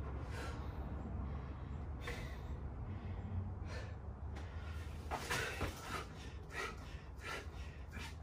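Heavy, hard breathing of a person mid-way through a set of burpees with push-ups: a run of sharp exhales and gasps, coming faster about five seconds in, with a low steady hum underneath.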